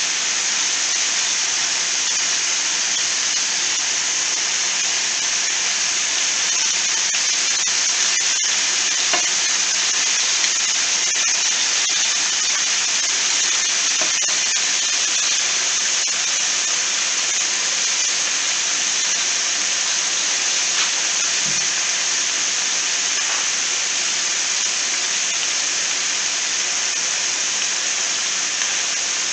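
Chicken pieces frying in oil in a skillet: a steady, even sizzle, with a few light clicks as metal tongs turn the pieces.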